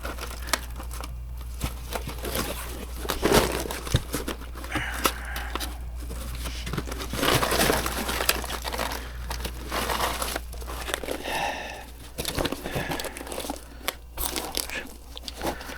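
Dry old chestnut burrs crunching and rustling as they are handled and gathered into a container, with scattered crackles and a few louder knocks.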